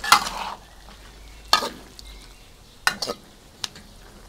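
Metal wok spatula stirring a thick coconut-milk sauce in a steel wok, with the sauce simmering underneath. A loud scrape at the start is followed by single scrapes against the pan about 1.5 and 3 seconds in, and a light click near the end.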